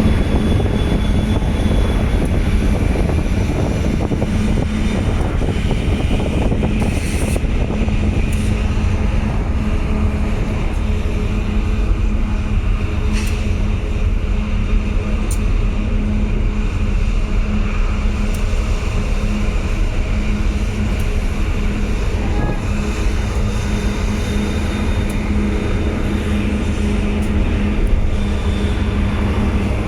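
GE diesel-electric locomotive in dynamic braking: the brake-grid cooling blowers run with a steady loud hum over a low rumble, while the traction motors work as generators to hold the train back.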